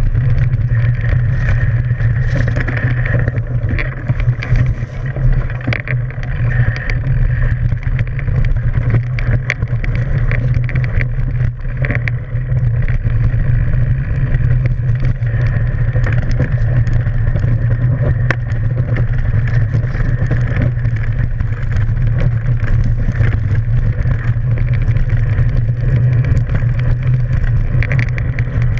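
Mountain bike riding downhill on a dirt trail: a steady low rumble of wind on the microphone and the knobby tyre rolling, with frequent small knocks and rattles from bumps.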